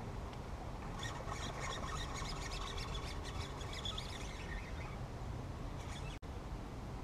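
Steady wind rumble on the microphone, with a spell of high chirping and squeaking from about a second in that fades out after some four seconds.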